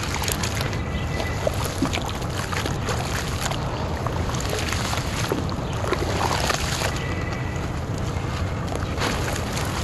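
Wet clay being squeezed and kneaded by hand in a basin of muddy water: steady sloshing and squishing with small splashes and gritty crackles.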